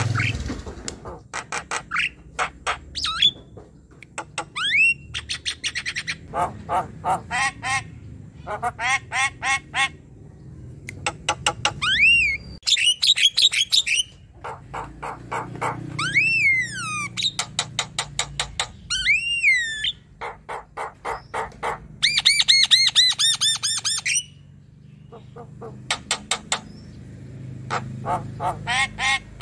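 Javan myna singing: runs of rapid, harsh chattering notes broken by short pauses, with several whistled notes that rise and then fall.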